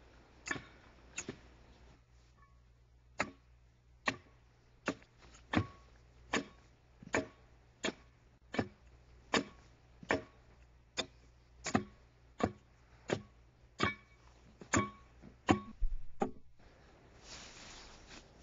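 Axe blows hewing an oak log into a railroad tie: sharp wooden knocks, some with a brief ring, at an even pace of about one every three-quarters of a second. Two come first, then after a short pause a long steady run of strokes stops a couple of seconds before the end.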